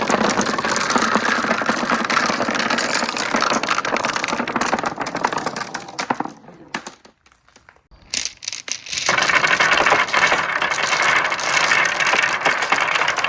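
Marbles rolling and clattering along a marble run's rails, a dense rattle of small clicks. It dies away about six seconds in, leaves a near-quiet gap with a few clicks, and picks up again about nine seconds in.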